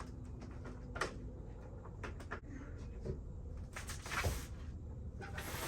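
A few separate knocks and short scraping rustles over a low steady hum, like something being handled or a door being worked.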